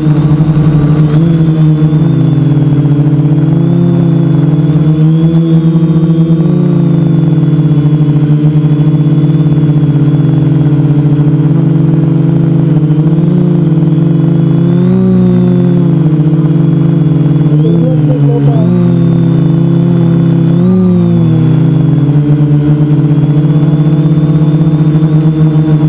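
Multicopter's electric motors and propellers running, heard from a camera on the aircraft itself: a loud, steady buzzing hum whose pitch bends up and down a few times in the second half as the throttle changes.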